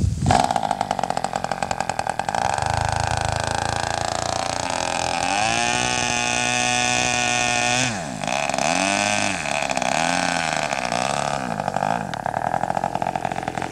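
Radio-controlled model airplane engine running on the ground. It revs up about five seconds in, holds a high steady pitch, drops near eight seconds, then is throttled up and down several times.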